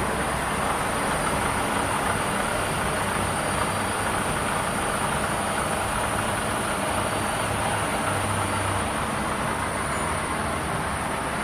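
Steady machine-shop running noise, a continuous mechanical rumble and hum, with a steady high-pitched whine above it.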